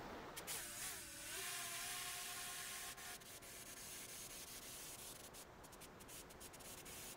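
Motors and propellers of a 7-inch FPV quadcopter in flight, heard from the camera it carries: a faint rush of prop wash with motor tones that waver in pitch about a second in as the throttle changes, then hold steady, with scattered clicks in the second half.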